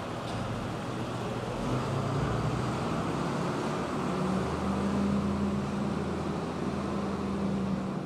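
Farm tractor's diesel engine running steadily as it pulls away with an empty trailer, its note rising slightly about two seconds in.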